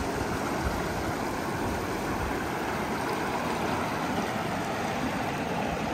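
River water running over rocks in a steady rushing wash.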